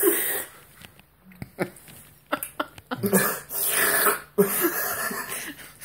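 A teenage boy's breathy, throaty vocal noises: a huffing laugh at the start, a few short mouth clicks, then a longer breathy, hissing exhale from about three seconds in.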